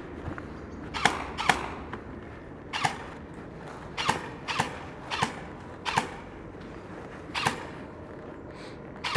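Footsteps crunching on a gritty floor, about nine uneven steps at a walking pace.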